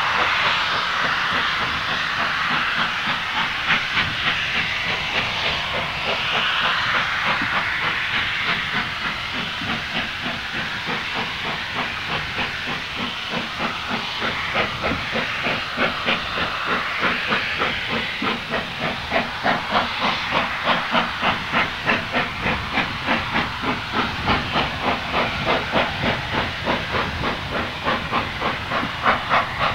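J94 'Austerity' 0-6-0 saddle-tank steam locomotive working hard up a 1-in-50 gradient with a heavy train. It starts as a steady hiss of steam, and from about halfway its exhaust beats come through as a sharp, regular chuffing that grows stronger.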